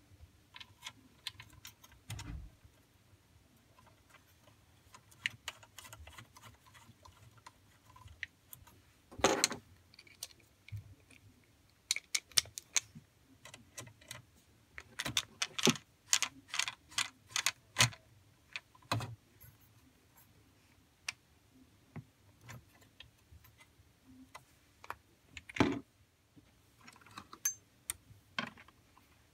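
Irregular small clicks, taps and scrapes of a screwdriver and metal parts being handled inside the open chassis of an Anchor Liberty portable PA system, with a handful of louder sharp knocks scattered through.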